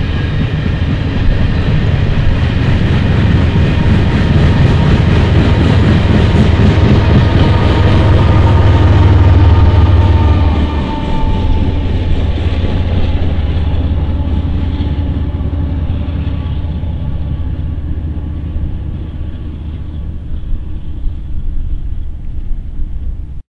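Coal train's cars rolling past, wheels rumbling and clattering on the rails. The sound drops off sharply about ten seconds in as the last car goes by, then the rumble of the receding train fades away.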